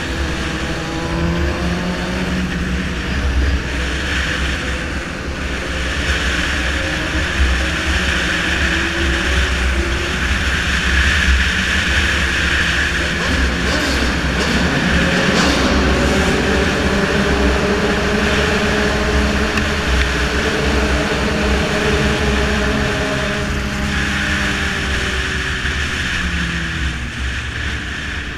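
Sport motorcycle engine running at speed, its pitch rising and falling as the bike speeds up and slows, under heavy wind rumble on the microphone.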